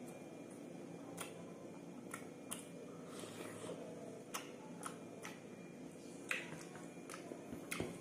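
Close-miked eating of beef curry and rice by hand: wet mouth clicks and smacks from chewing, coming irregularly about every half second, the loudest about six seconds in, over a faint steady hum.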